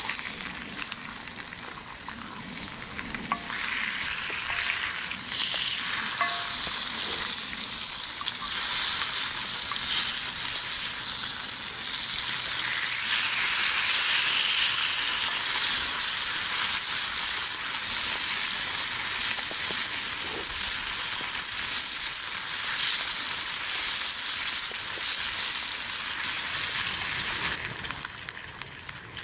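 Salt pork frying in a pan over a campfire: a steady hissing sizzle that builds over the first few seconds, then drops off sharply near the end.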